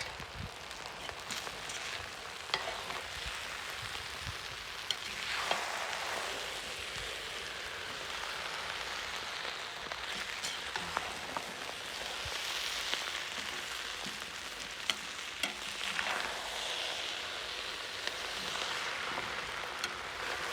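Plov sizzling in a cast-iron kazan, a steady sizzle that swells a few times, with scattered faint clicks and crackles; the rice at the bottom has caught and is scorching.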